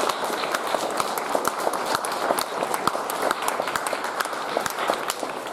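Applause from many people clapping, dense and steady.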